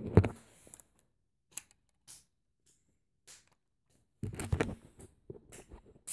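Handling noise: a couple of knocks at the start, then quiet broken by a few light clicks, and a short spell of knocking and rustling about four seconds in.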